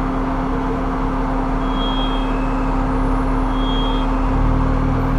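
Off-road 4x4 engine running slowly through a rock obstacle, a steady drone that grows heavier in the low end about four seconds in as the driver gives it more throttle. Two brief high chirps sound midway.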